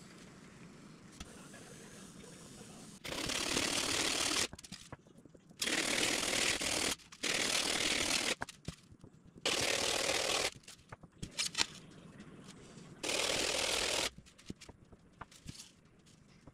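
Sanding block with 36-grit paper rasping on a blue foam plug, heard as sped-up time-lapse audio. There are five rapid bursts of about a second each, with small clicks and knocks between them.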